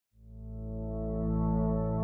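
Intro music: sustained held chords fading in just after the start and slowly growing louder.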